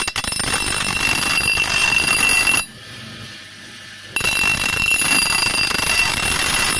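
Blunt axe being sharpened on a UTEL combined bench grinder-sharpener: the steel against the spinning wheel gives a harsh, grating hiss with a steady high ring over it. About two and a half seconds in, the grinding drops away for about a second and a half as the blade comes off the wheel, then starts again.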